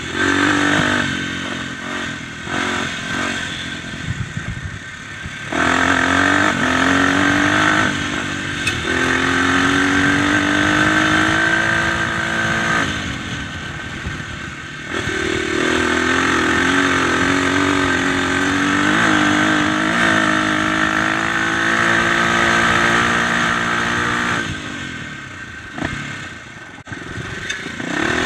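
Dirt bike engine ridden along a trail: it pulls hard under throttle with its pitch rising as it speeds up, eases off, then picks up again. There are quieter off-throttle stretches in the first few seconds, a little before the middle, and near the end.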